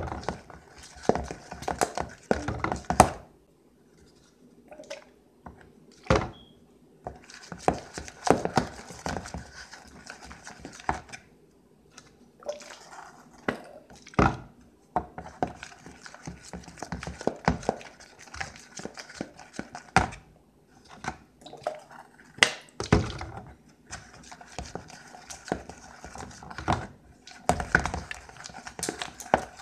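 Metal spoon stirring thick homemade glue slime in a plastic bowl, knocking and scraping against the bowl in irregular strokes, with a few short pauses and some louder knocks, the loudest about 3 and 14 seconds in.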